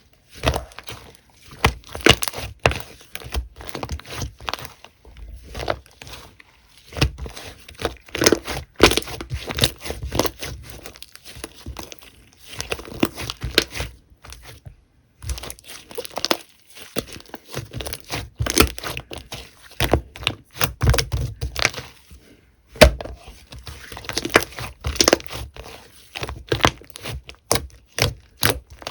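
Slime being squeezed, poked and pressed by hand, making dense, irregular clicking and crackling pops in clusters, with a few short pauses.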